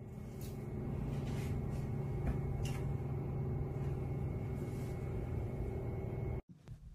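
Steady low machine hum with several held tones, with a few light clicks and taps in the first three seconds; it cuts off abruptly near the end.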